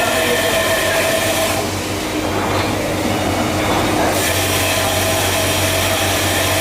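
Steady workshop machinery noise: a low hum under a held whining tone. The sound changes abruptly about a second and a half in and changes back about four seconds in.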